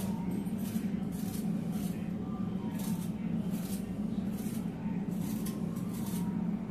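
A raw potato being peeled by hand, the blade scraping off the skin in repeated short strokes, over a steady low hum.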